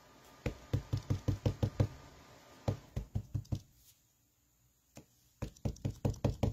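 Ink pad tapped rapidly against a clear acrylic stamp block to ink a rubber stamp. The taps come in three quick runs of several taps a second, with a short pause after the second run.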